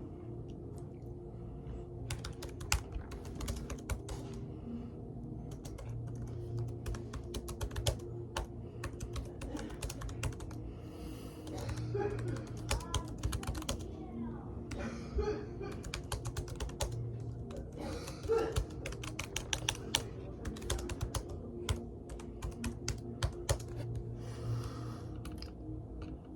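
Typing on a Chromebook's laptop keyboard: runs of quick key clicks broken by short pauses.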